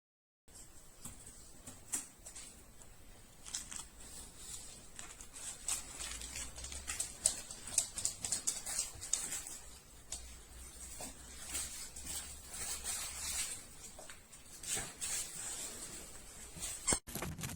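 Dog mouthing and chewing a plush squeaky toy: an irregular run of small clicks and rustles, busiest a few seconds into the stretch.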